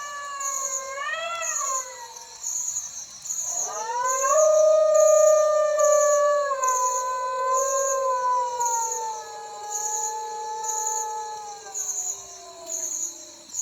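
A dog howling: one long, wavering howl that dies away about two seconds in, then a second, longer howl that rises around three and a half seconds in and slowly sinks in pitch until it stops near the end. Crickets chirp throughout in an even pulsing rhythm.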